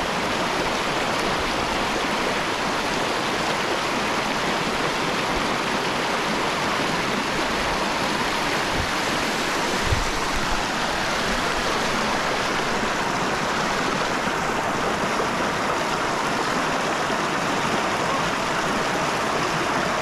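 Shallow mountain stream rushing and splashing over rocks in small riffles and cascades, a steady rush of water. A brief low thump about halfway through.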